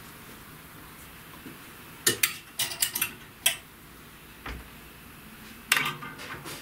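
Metal clothes hangers clicking and clinking against each other and the wardrobe rail as garments are hung up: a run of sharp clicks starting about two seconds in, a dull thump midway, and another cluster of clicks near the end.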